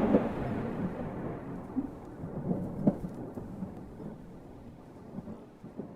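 AI-generated thunderstorm sound effect from the Stable Audio Open model: a thunder rumble dying away, with rain and a few faint crackles.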